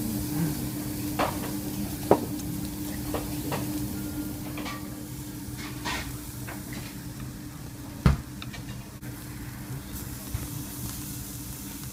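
Wagyu beef sizzling on a tabletop gas yakiniku grill over a steady low hum. A few sharp clicks and knocks of tongs or dishes come through, the loudest about eight seconds in.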